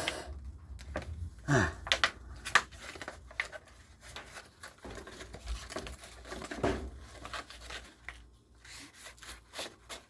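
Plastic blister packaging and cardboard being torn and crinkled open by hand, with irregular rustles and small clicks.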